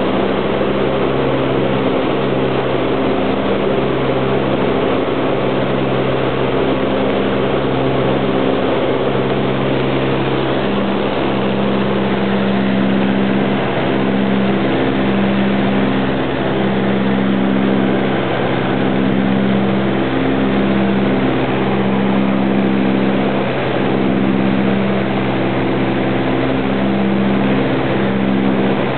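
Twin radial engines of a Beechcraft C-45 running steadily in cruise, heard inside its cabin, with a slow, regular throb in the drone.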